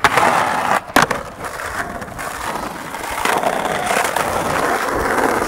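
Skateboard wheels rolling steadily over stone paving slabs, with sharp clacks of the board at the start and again about a second in.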